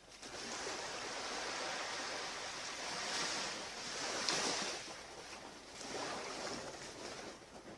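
Ocean surf breaking and washing up a beach, swelling and easing about three times.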